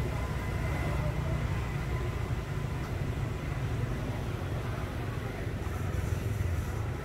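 Steady low rumbling noise, uneven and flickering, with no clear event standing out.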